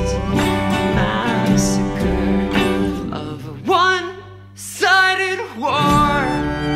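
Background music: a song with a sung vocal over string accompaniment. The low accompaniment thins out briefly in the middle while the voice holds two wavering sung notes, then comes back in full.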